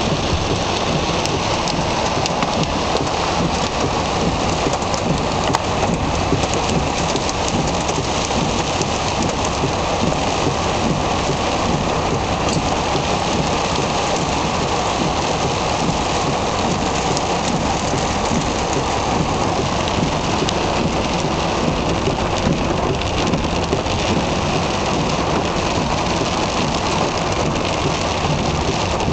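Heavy rain mixed with small hail pelting the car's roof and windows, heard from inside the car as a steady, dense patter of impacts.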